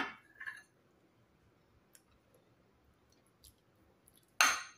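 Metal spoon clicking and scraping against a clear plastic cup as it digs into a frozen-hard graham dessert: a sharp scrape at the start, a few faint clicks, then a louder scrape near the end.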